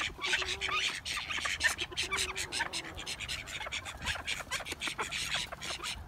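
Dense, rapid crackling and rustling in dry leaf litter and bark mulch, as feet and bills stir the ground in a duck pen. Two faint, low, drawn-out notes sound in the first half.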